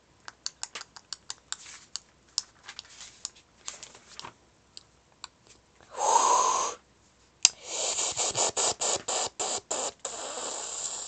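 Phone being handled: a scatter of light taps and clicks, then about six seconds in a brief loud rush of noise, followed by a quick run of loud rustling scrapes against the microphone.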